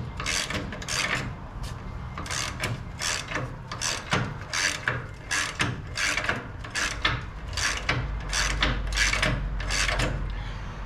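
Hand ratchet wrench with a 21 mm socket working the suspension bolt nuts, its rasping back-strokes repeating about twice a second.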